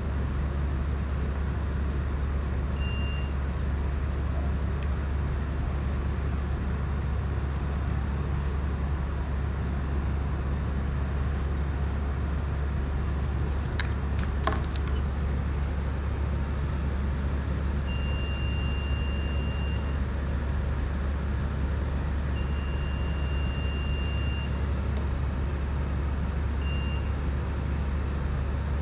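Multimeter continuity beeps, all at one high pitch, as test leads touch the drone's wiring: a short beep about three seconds in, two longer ones of about two seconds each in the second half, and a short one near the end. Under them runs a steady low hum, with a few faint clicks about halfway through.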